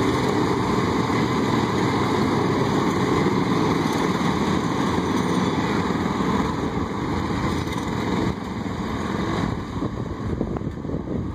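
Small engines of a group of miniature motorized parade carts running together as they drive past. The sound drops a little after eight seconds as the last carts move away.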